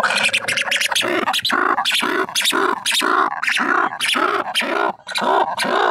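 Black-and-white ruffed lemur giving its loud call: a rhythmic series of loud cries, about three a second. It is a happy call, her singing.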